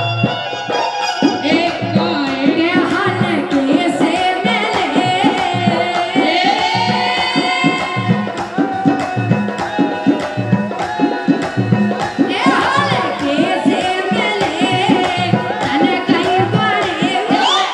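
Amplified live Bundeli Rai folk music: a young male singer and a female singer trading sung lines in call-and-response over a steady, driving hand-drum rhythm.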